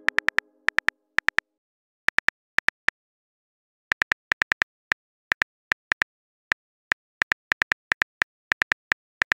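Simulated phone-keyboard typing sound: short, identical high ticks, one per keystroke, coming in irregular runs broken by pauses of up to about a second.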